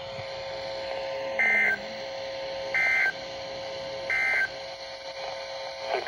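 Three short bursts of EAS/SAME data tones from a Midland weather radio's speaker, spaced about a second and a half apart: the End of Message code that closes a Required Weekly Test. A steady lower tone runs underneath and breaks off during each burst.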